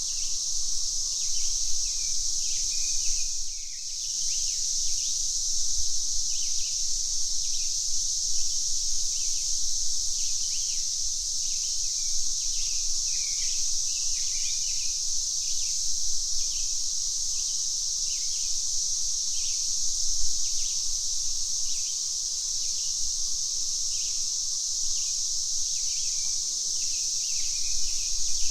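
Cicadas droning steadily in a high, even hiss, with a bird giving short chirps over and over. The drone dips briefly once, a few seconds in.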